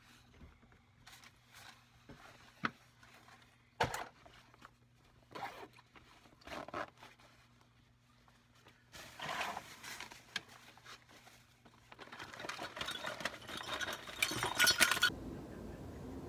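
A person moving about and handling a bag in a cramped storage space: scattered knocks and clicks, the sharpest about four seconds in, then longer stretches of rustling and shuffling, over a low steady hum that stops about twelve seconds in. The rustling cuts off suddenly near the end.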